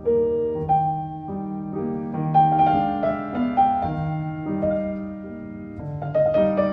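Background music: a gentle piano melody with struck notes and sustained chords.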